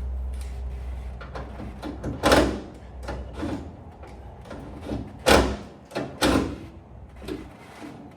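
A few short sliding or scraping noises, the loudest about two seconds in and two more a second apart past the middle, with a low hum that fades early on.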